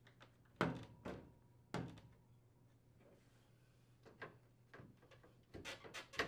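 Plastic front grill of an LG built-in air conditioner being snapped into its frame: sharp plastic clicks and knocks, three loud ones in the first two seconds, then lighter ones and a quick run of clicks near the end.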